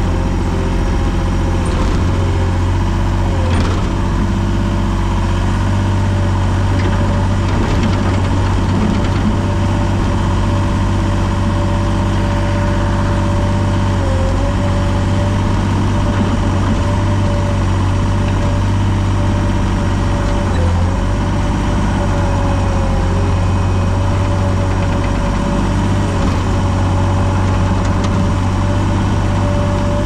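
Gehl skid steer engine running steadily, with a steady whine over its low rumble that dips briefly a few times as the machine is worked.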